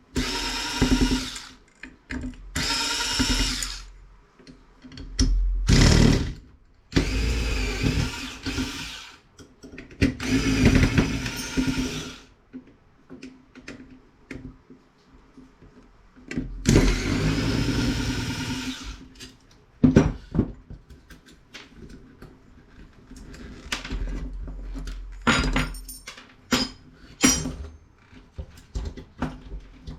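A power drill running in short bursts of one to two seconds, about six times, followed by scattered clicks and small metallic knocks.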